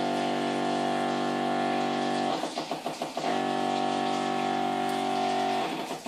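Small electric pump pushing water through a hand-held injection needle into a whole chicken, running with a steady hum. It stutters briefly twice, about two and a half seconds in and near the end.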